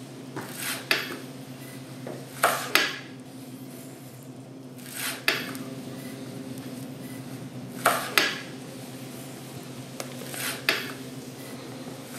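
Slow footsteps on hard stairs and floor: sharp steps, mostly in pairs, repeating about every two and a half seconds.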